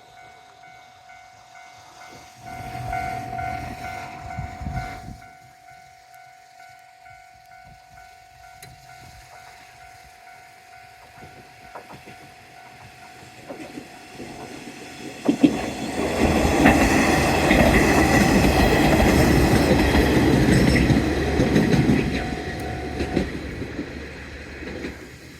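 Japanese level-crossing alarm ringing in a steady repeating tone, with a brief louder burst about three seconds in. Diesel railcars of the Orange Shokudo tourist train then run through the crossing for about six seconds, loud engine and wheels clattering on the rail joints, and fade. The crossing alarm stops shortly after.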